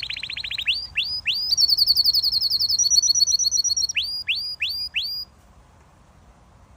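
Domestic canary singing: a fast trill, a few single upswept notes, a rapid high rattle, then four more upswept notes, stopping abruptly about five seconds in.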